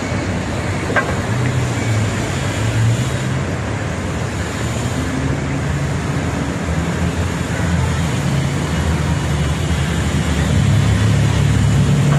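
Steady road traffic noise with a low engine hum from passing vehicles, growing a little louder near the end.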